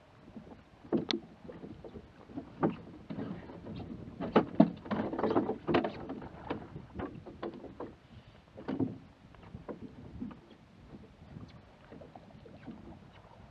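A hooked bass being fought and landed at the side of a bass boat: irregular sharp knocks and thuds against the boat, busiest about four to six seconds in, with another strong one near nine seconds.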